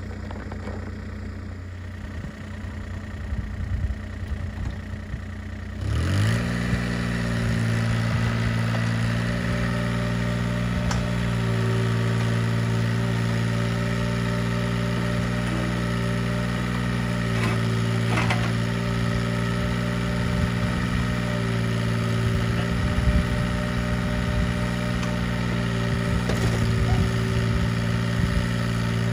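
2005 mini excavator's diesel engine running warmed up, its belt no longer squealing now that the thermostat has opened. It idles quietly with a few light knocks, then about six seconds in it is throttled up with a quick rise in pitch and holds a steady, louder speed.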